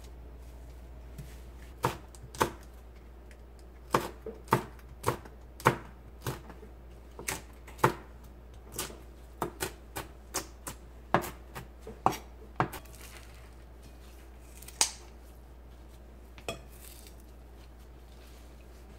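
A knife slicing Cheongyang green chili peppers into rings on a cutting board: a run of sharp, irregular chops, about one or two a second, thinning out near the end.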